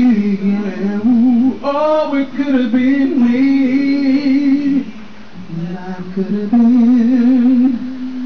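A man singing a slow a cappella gospel song into a handheld microphone. He holds long notes with a wide vibrato, with a softer, lower phrase in the middle before the voice swells again.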